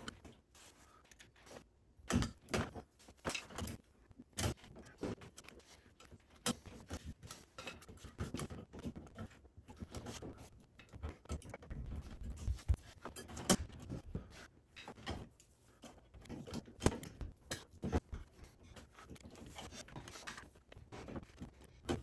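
An electrical box being worked into a wall opening and tightened in place: irregular clicks, knocks and scrapes of handling and fastening.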